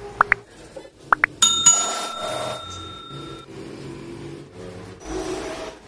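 Two short rising chirps, then a bell-like ding that rings on for about two seconds.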